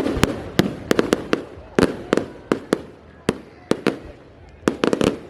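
Aerial fireworks bursting: an uneven string of sharp bangs over a fading crackle, with a quick cluster of several bangs near the end.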